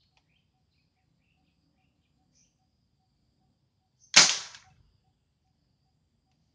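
Homemade PVC gas-fuelled combustion gun firing once about four seconds in: a single sharp bang as the gas-and-air charge in its combustion chamber ignites, dying away in about half a second.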